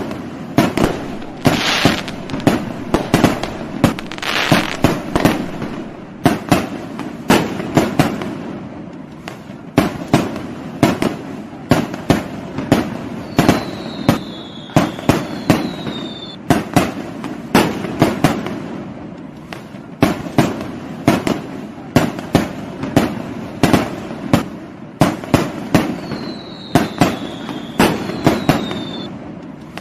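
Fireworks going off in a steady barrage of sharp bangs, about two a second, with crackle after some of them. Twice there are short pairs of falling whistles.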